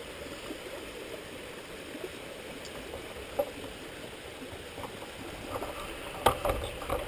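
Steady rush of flowing water, a stream running, with a few light knocks and handling clicks near the end.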